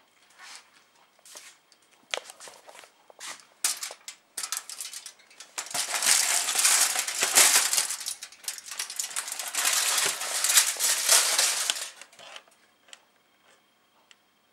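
Crumpled aluminium foil crinkling and rustling as a modem is handled and turned over on it. Scattered crackles at first, then a long, dense stretch of crinkling that stops shortly before the end.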